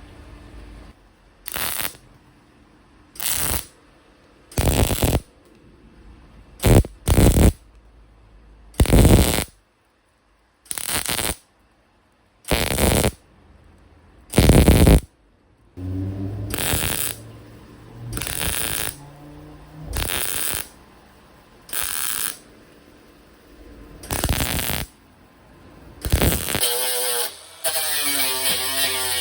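Welder laying a seam weld on car sill sheet steel as a series of short stitch welds: about a dozen brief crackling bursts, one every couple of seconds, then a longer, more continuous run near the end.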